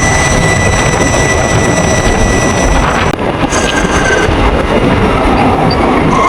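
Ather 450X electric scooter on the move: heavy rumbling wind and road noise with a thin, steady high-pitched whine from the drive. About three seconds in, the high whine drops away.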